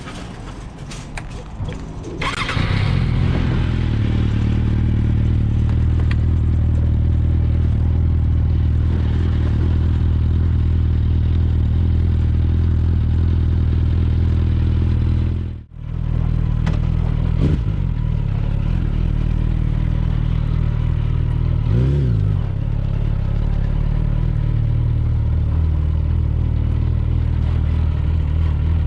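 Suzuki GSF 650 Bandit's inline-four engine running steadily through an Akrapovic exhaust, getting loud about two seconds in, with a brief break about halfway and a couple of short revs after it.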